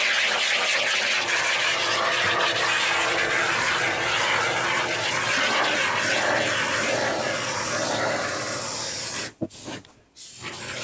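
Aerosol can of expanding polyurethane foam spraying with a steady hiss as foam is laid in rows. The spray breaks off briefly about nine seconds in.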